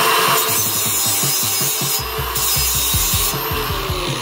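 Handheld angle grinder grinding the edge of a metal bracket piece: a loud, hissing grind over a high motor whine. The grind breaks briefly about halfway, then stops a little after three seconds as the disc comes off the metal and the motor's pitch falls.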